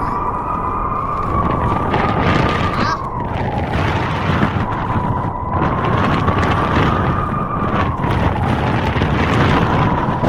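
Blizzard wind blowing hard: a steady rush with a high whistling howl that slowly rises and falls in pitch every few seconds.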